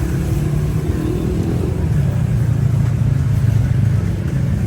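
Steady low rumble of a motor vehicle on the move, engine and road noise running evenly.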